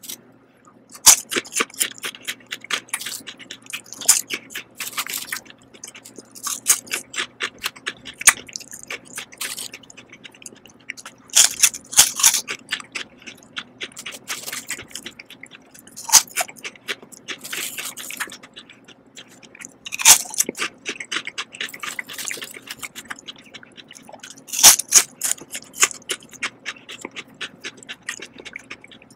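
Lay's potato chips being bitten and crunched in the mouth, with the dry rustle of chips picked from a pile, coming in repeated bursts of sharp crackles.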